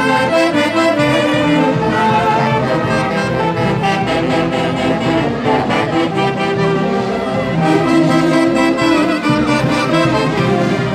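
Live wind-band music: saxophones and brass playing a melody together in held, changing notes, loud and continuous.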